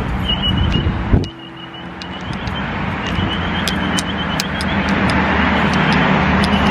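Road traffic noise of passing cars, with wind blowing across the microphone. The noise drops suddenly about a second in, then builds steadily toward the end.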